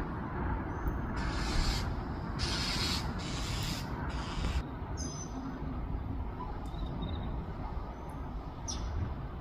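Steady outdoor rumble with a rushing hiss that swells several times in the first half, and a small bird's short, high chirps about five seconds in and again near the end.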